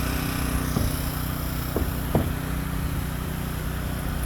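An engine running steadily in the background, with three short, sharp knocks about a second in, near the middle and just after.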